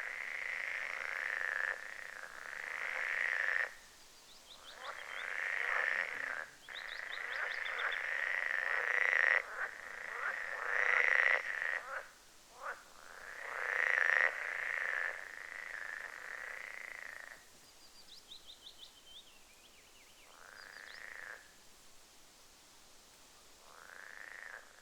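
Frogs calling in long, overlapping trills, each lasting one to several seconds, with short breaks between them. Faint quick bird chirps come in between the trills.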